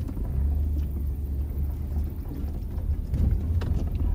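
Lifted pickup truck on all-terrain tires driving slowly over a rough grass field, heard from inside the cab: a steady low rumble of engine and tyres, with a few faint knocks and rattles.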